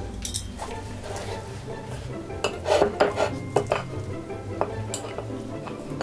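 Clatter of tableware and chopsticks as a tomahawk steak is set onto a plate of fire noodles, with a quick run of knocks and clinks about halfway through.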